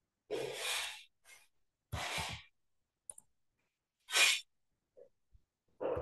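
A man breathing into a close microphone: three short noisy breaths, the third, about four seconds in, the sharpest and loudest.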